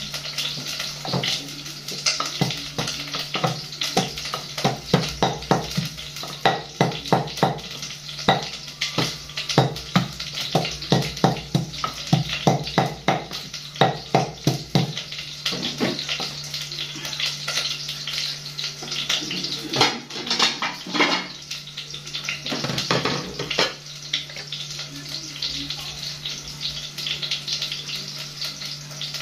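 Wooden pestle pounding in a small wooden mortar: steady knocks at about two a second for roughly fifteen seconds, then stopping. A few scattered knocks follow later.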